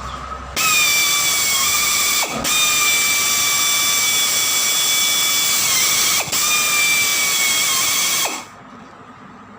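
High-speed power tool whining steadily in three long runs, with two brief breaks and its pitch sagging slightly as each run ends.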